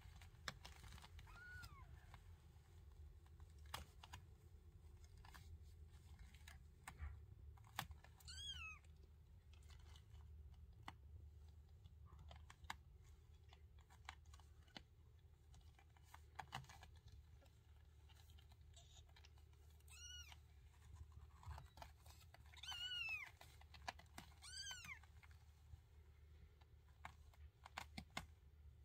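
Newborn Ragdoll kittens mewing: about half a dozen short, high, squeaky calls, arching up and down in pitch, most of them in the second half and two close together. Small clicks come through between them.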